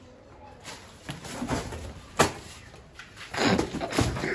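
Handling noise from a full-face motorcycle helmet being worked with: soft rustling, one sharp click about halfway through, and a louder scuffle near the end, as the visor mechanism is fiddled with.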